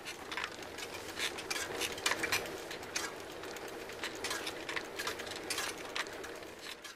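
A sound effect of irregular clicking and clinking over a steady hiss, fading in at the start and cutting off abruptly at the end.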